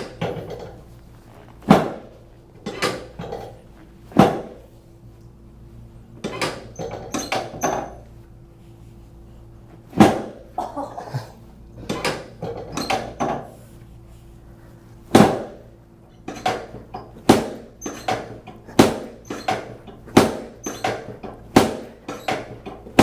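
Chiropractic adjustment of the back: a series of sharp thumps and cracks, some single and some in quick clusters of two to four, about twenty in all.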